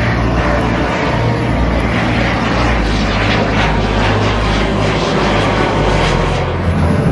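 Jet engine of a fighter jet in an aerobatic display, a loud steady rushing roar as it climbs overhead.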